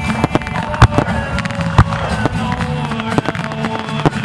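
Aerial fireworks display: sharp bangs of bursting shells, the loudest about a second in and near two seconds, with lighter crackling between them, over a song playing.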